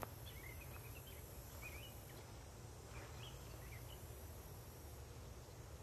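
Faint outdoor ambience: small birds chirping now and then over a low steady rumble.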